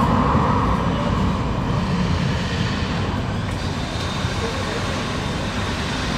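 Steady rumble of a running engine.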